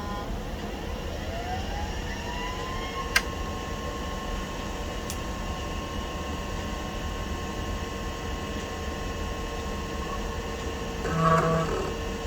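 Compaq SLT 286 booting: a drive motor whine rises in pitch over about two seconds, then holds steady with a low hum under it. A sharp click comes about three seconds in, and a short buzzy drive seek sounds near the end.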